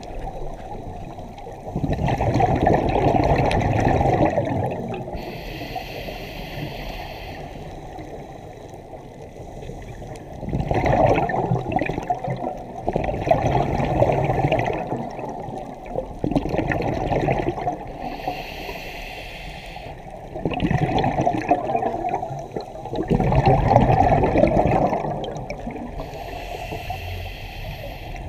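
Scuba diver breathing through a regulator underwater: a short hiss on each inhale, then a longer rush of gurgling exhaled bubbles, several breaths in turn.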